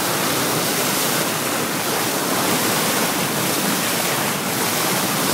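Steady rush of seawater churned up by a moving boat's bow wave.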